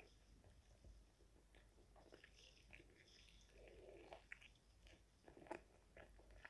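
Faint close-up biting and chewing of a crispy fried chicken wing: scattered small crunches and wet mouth sounds, with one sharper crunch about five and a half seconds in.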